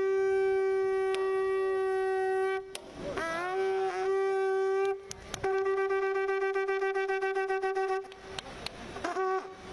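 A conch shell (shankh) blown ceremonially in long blasts on one held pitch, three long blasts with short breaks and a short one near the end. The second swoops up into the note and the third wavers with a quick pulse.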